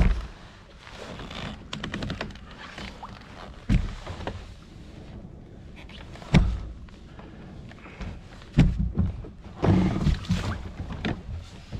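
Irregular thunks and knocks against a kayak, about five spread over the stretch, with a cluster near the end.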